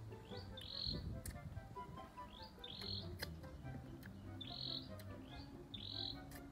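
Soft background music with a steady, stepping bass line. Over it, a bird repeats a short high call, rising into a brief held note, about every two seconds.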